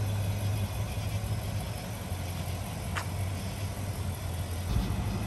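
Nissan Titan pickup's engine idling steadily, a low even hum.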